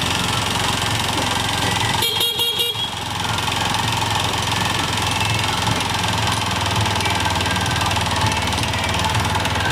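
Honda Gyro Canopy's 50 cc single-cylinder four-stroke TC50B engine running steadily, with the abnormal noise from around the crankshaft that the seller lists as a fault. A short high beep cuts in about two seconds in.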